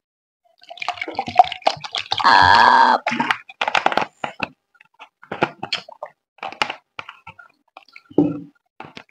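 Drinking through a straw from a plastic cup, close to the microphone: a longer slurp about two seconds in, then scattered small gulps, swallows and clicks.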